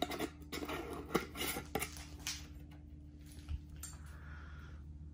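A lid being closed on a can: several sharp clicks and taps in the first couple of seconds, then one soft thump about three and a half seconds in, over a faint steady hum.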